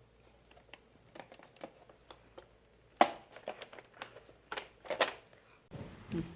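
Handling noise from the plastic body of a robot vacuum cleaner being picked up and turned over: scattered light clicks and rustles, with a sharp knock about three seconds in and a few more knocks around the five-second mark.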